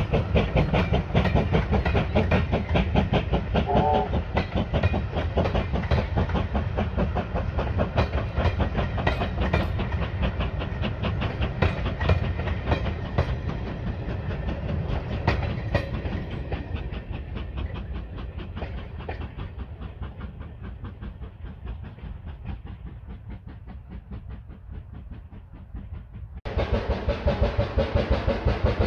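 USATC S160 2-8-0 steam locomotive under way, its exhaust beating in a rapid, even rhythm that fades steadily as it passes away into the distance. Near the end the sound cuts abruptly to another loud stretch of the same rapid exhaust beats.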